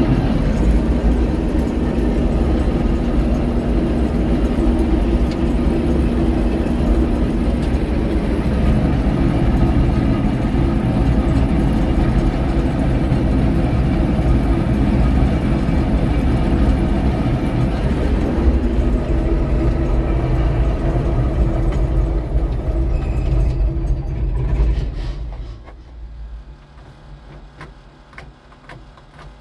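White 8900 combine's diesel engine running steadily, heard from inside the cab, then shut off about 25 seconds in, its sound falling away within a second or so to a faint low hum.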